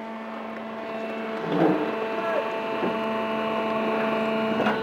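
A steady mechanical hum at a few fixed pitches, growing gradually louder, with faint voices in the background.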